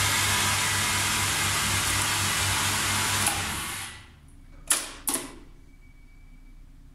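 Hydraulic elevator pump unit running with a loud, steady hum and hiss, then winding down and stopping a little past halfway. About a second later come two sharp clicks, typical of the controller's relay contactors dropping out.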